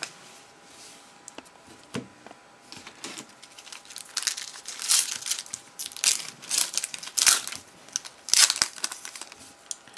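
Foil trading-card pack wrapper being torn open and crinkled in a run of irregular rustling bursts, starting about four seconds in.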